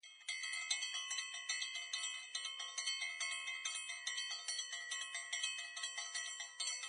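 Intro music of bell-like chimes: a steady run of struck ringing notes, about two to three a second, each ringing on into the next.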